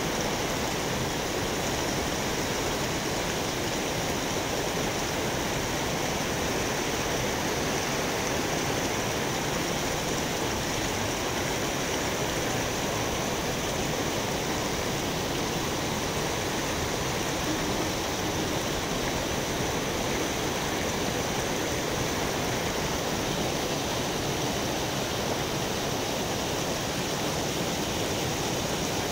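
Steady rushing of river water washing against the boulders at the water's edge.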